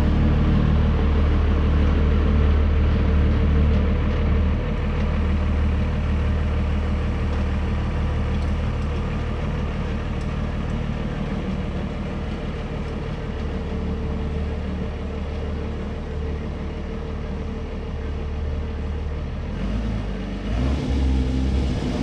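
Monster truck's engine running as the truck drives away, the sound slowly fading as it pulls off. Near the end the engine revs up, louder and rougher.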